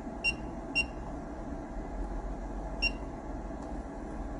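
Three short electronic beeps from key presses on the operation panel of a Juki LBH-1790S buttonhole sewing machine, over a low steady hum.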